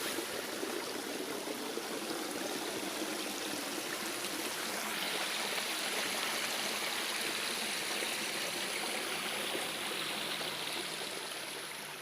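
Steady rushing of running water, like a stream, growing brighter and a little louder about five seconds in.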